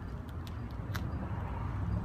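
1973 Kawasaki 250 two-stroke motorcycle engine running steadily with a low rumble, with a few faint ticks above it.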